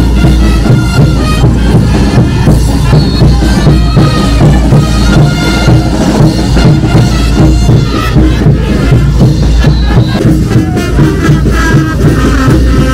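Loud caporal dance music with a strong, steady drum and bass beat.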